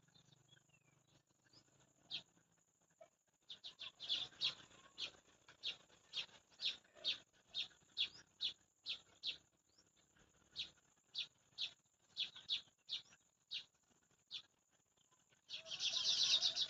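Sparrow chirping: a long series of short, sharp chirps, about two a second, starting a few seconds in. Near the end the chirps run together into a dense, louder chatter.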